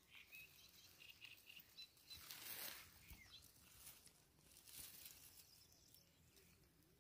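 Near silence: faint outdoor ambience, with faint bird chirps in the first two seconds and soft rustles a little after two seconds and again near five seconds.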